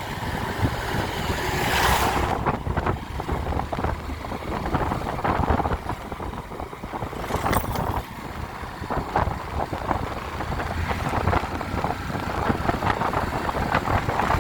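Yamaha FZ motorcycle running on the move, its engine noise mixed with wind buffeting the microphone.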